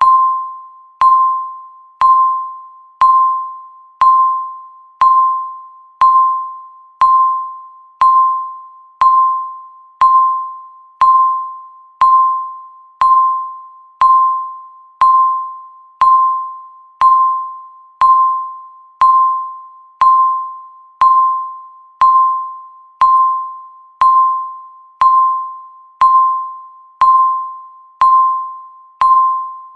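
Countdown timer beep sounding once a second: a single clear tone that starts sharply and fades away before the next, marking each second as the timer counts down.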